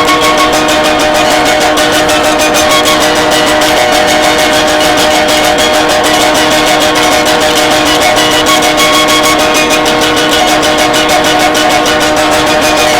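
Loud guitar music: a steady droning chord held under a rapid, even pulse.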